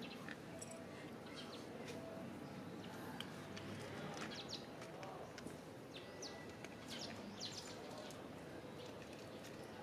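Kittens crunching dry kibble from a plastic dish, small crisp crunches scattered throughout, with small birds chirping in the background.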